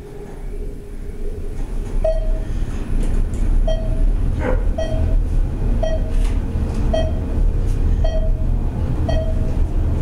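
ThyssenKrupp traction elevator car travelling down at speed: a steady low rumble of ride noise that builds in the first couple of seconds, with a short floor-passing beep sounding about once a second, once for each floor passed.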